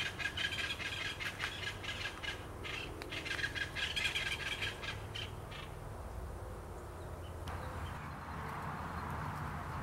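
Plain chachalacas calling, a noisy chorus of rapid, harsh, repeated calls that dies away a little over halfway through, leaving a steady outdoor hiss with a low hum beneath.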